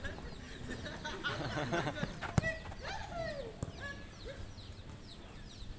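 Futsal players calling out during play, with one sharp kick of the ball about two and a half seconds in and a lighter knock about a second later. Small birds chirp throughout.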